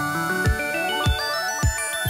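Electronic background music with no singing: a kick drum hits about every half second under synth notes that step upward, climbing higher toward the end.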